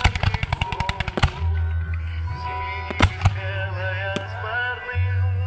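Aerial fireworks exploding: a quick string of crackling bangs in the first second or so, then three separate booms at about three and four seconds in.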